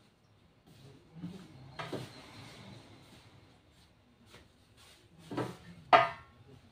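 Hands patting, rubbing and lifting a shaped loaf of bread dough on a kitchen counter: soft rubbing and a few light knocks, with one brief, louder, sharper sound near the end.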